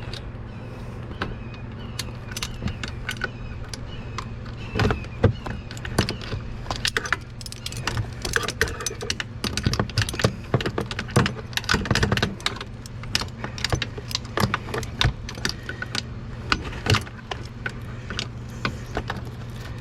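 Metal hand tools, a socket and wrench, clinking and scraping against the Kawasaki Mule's metal parts in irregular clicks and clatters while a stubborn nut is worked on. A steady low hum sits behind.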